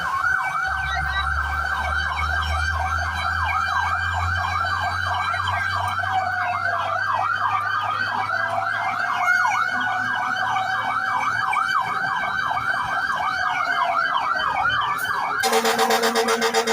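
Fire truck's electronic siren in a fast yelp, sweeping up and down several times a second over a low engine rumble. Near the end it switches to a harsh, rapidly pulsing tone.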